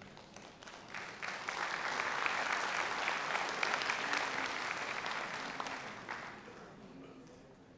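Audience applauding, swelling about a second in and dying away near the end.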